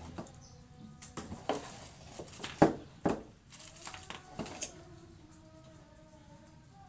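Irregular knocks and clatter of washing machine parts being handled during disassembly, about eight sharp hits in the first four and a half seconds, the loudest about two and a half seconds in, then quieter.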